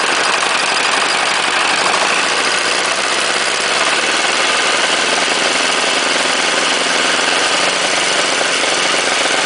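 418cc single-cylinder Chinese air-cooled diesel engine running steadily at high revs, loud and not running quite right; the owner suspects the valve clearance.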